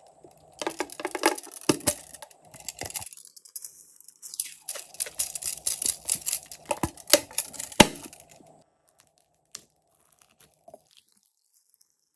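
Glossy slime being squeezed and stretched by hand, making dense crackling and popping clicks in two spells of a few seconds each, then only a few faint clicks.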